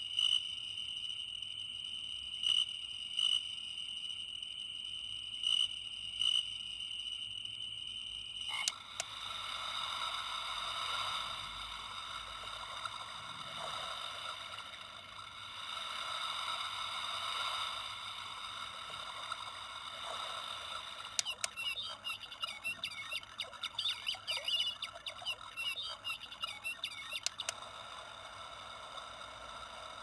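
Built-in sound player of a star-projector night light: a steady high-pitched electronic tone with a few brief louder pulses, which switches abruptly about eight and a half seconds in to a recorded chorus of frogs and insects, with bursts of rapid chirping in the later part.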